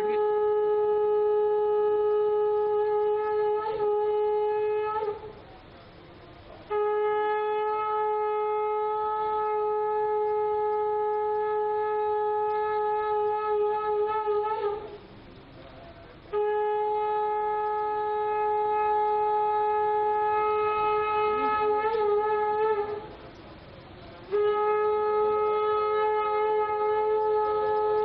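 Conch shell (shankh) blown in long, steady single-note blasts of about seven or eight seconds each, with short pauses for breath between them. The pitch wavers slightly as each blast ends. There are four blasts: one already sounding at the start, and the last still going at the end.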